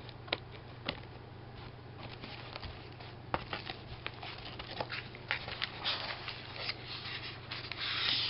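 Cardboard box and packaging being handled and worked open: scattered clicks and taps with rubbing and scraping, and a louder, steady rustling scrape that starts near the end.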